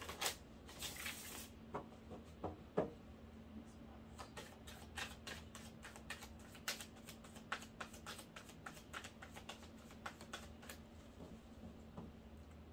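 A deck of tarot cards being shuffled by hand: a run of quick, soft card flicks and slaps, sparse at first and coming thick and fast from about four seconds in until near the end.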